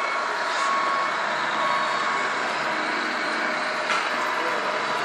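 Diesel engine sound from a radio-controlled scale Scania R500 truck's onboard sound unit, played through a small speaker as the truck rolls slowly down a ramp with a low-loader in tow, over a steady background hall noise. There is one sharp click about four seconds in.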